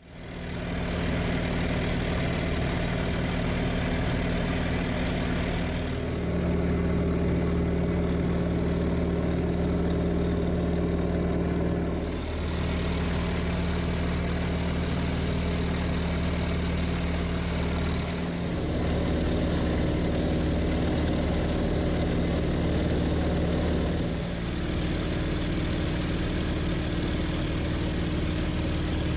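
Steady drone of the T-28 Trojan's piston engine and propeller, heard from inside its cockpit. Its pitch and loudness shift slightly about every six seconds.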